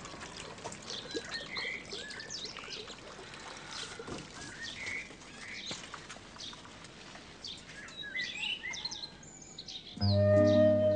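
Birds chirping and singing, many short calls over a faint steady hiss. About ten seconds in, instrumental music with sustained tones starts suddenly and is much louder.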